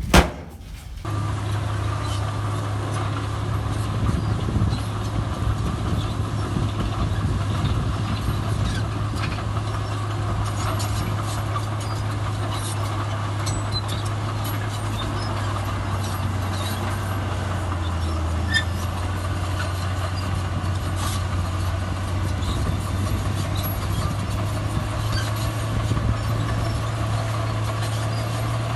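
Heavy diesel engine of earthmoving machinery running steadily, its pitch dipping slightly midway and rising a little near the end. A sharp knock comes right at the start, just before the engine sound sets in.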